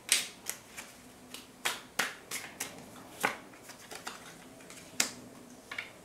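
Tarot cards being handled and drawn from the deck: about a dozen sharp, irregular card clicks and snaps, with a card laid down onto the spread on a wooden table.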